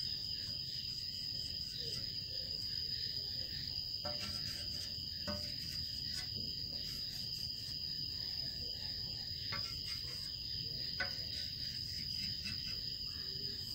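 Crickets trilling without a break on one high pitch, with faint scratching of a chalk stick drawing on a board.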